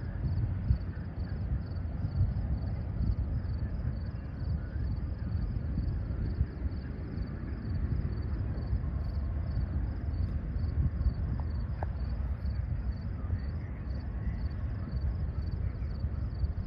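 Wind buffeting an outdoor microphone in an open field: a low, uneven rumble. Over it runs a faint, fast, even high pulsing, about three pulses a second.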